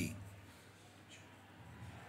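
The end of a man's spoken word fading out, then quiet room tone with a faint low hum.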